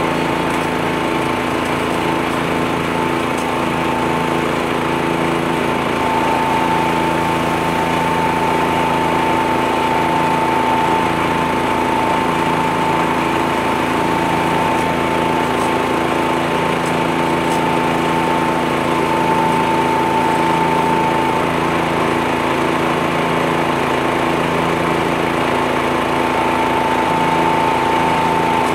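Tractor-mounted leaf blower running steadily, its engine drone and a steady high fan whine mixed with the compact tractor's engine.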